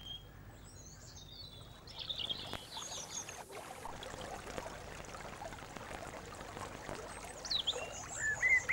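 Shallow stream running steadily over stones. Songbirds chirp a few times about a third of the way in and start singing again near the end.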